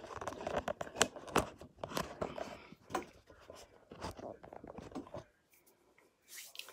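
Handling noise: a quick run of clicks, knocks and crackly rustles as the phone and things on the craft table are moved, stopping about five seconds in.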